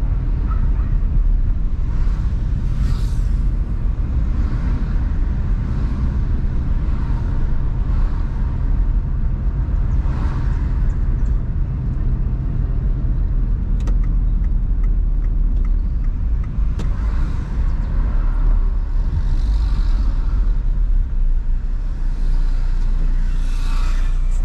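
A car driving on town streets: steady engine and tyre rumble heard from inside the cabin, with brief swells of higher road noise now and then.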